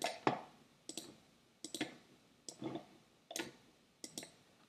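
Quiet, sharp clicks from a computer's mouse and keys, some single and some in quick pairs, coming every second or less.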